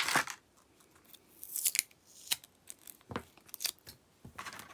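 Plastic packaging and small hard-plastic figure accessories being handled: a few sharp clicks and short crisp rustles, one after another.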